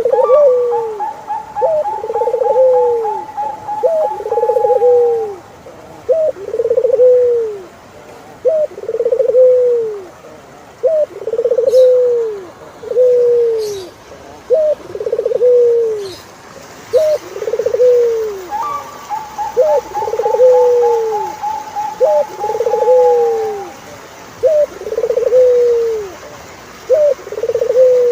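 Turtledove cooing over and over, each phrase a short rising note followed by a longer falling coo, about once a second. Twice a long, steady, higher drawn-out note sounds over it for several seconds.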